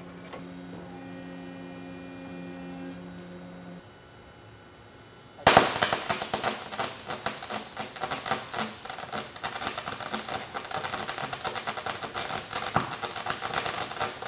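Resistance flash butt welder flashing: after a steady machine hum, a loud, dense, rapid crackling starts suddenly about five and a half seconds in and continues as the ends of the bar ring arc and spit sparks while they are brought together to build heat for the forge.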